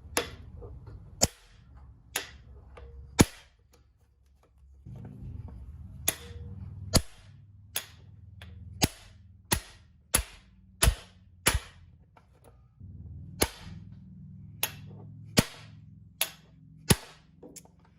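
Hammer striking a hand impact screwdriver, about seventeen sharp metallic blows roughly a second apart with a short pause a few seconds in, to break loose seized screws.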